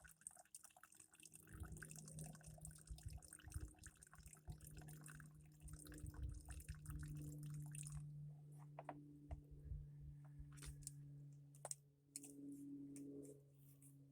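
Gasoline dripping faintly from a scooter's disconnected fuel line into a cup, followed after about eight seconds by a few light clicks of handling.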